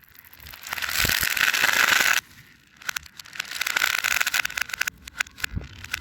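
Fidget toy balls being crushed, with the audio played in reverse: two long crackling, crunching stretches that swell and then cut off suddenly, with scattered sharp clicks between them.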